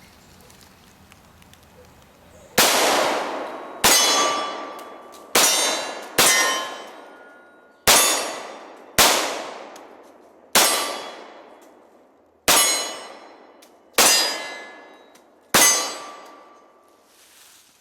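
Ten pistol shots from a Glock Model 30 .45 ACP, fired at an uneven pace of roughly one every one to two seconds, starting about two and a half seconds in. Each shot is followed by the ringing clang of a struck steel target.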